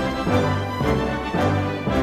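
Background music: an upbeat instrumental theme with a steady bass pulse.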